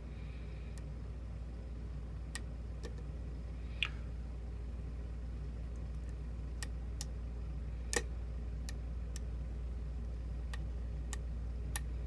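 Small metallic clicks of a lock pick working the pins of a pin-tumbler challenge lock under tension, scattered and irregular, about a dozen, with two louder ones. A steady low hum runs underneath.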